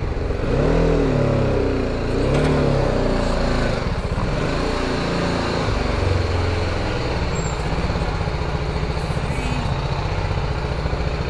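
BMW G310GS motorcycle's single-cylinder engine running at low speed, its pitch rising and falling a few times in the first few seconds, then holding steadier.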